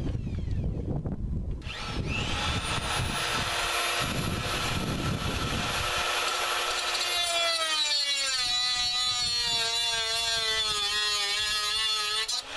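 High-speed cutoff tool cutting through an M6 threaded steel stud. The motor whines up about two seconds in, then drops in pitch and wavers as the abrasive wheel bites into the metal under load, and stops shortly before the end.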